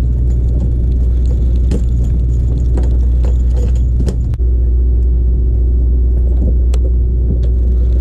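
Boat engine running with a steady low drone, its note shifting slightly about four seconds in. A few light clicks and taps sound over it.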